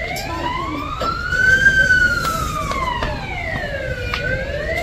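Emergency vehicle siren wailing, its pitch rising slowly and falling back in one long sweep of about four seconds, then starting to rise again near the end.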